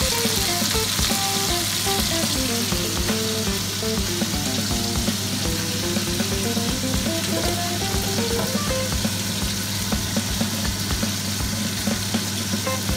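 Food sizzling steadily in a frying pan, under background music with a stepping melody and a regular beat.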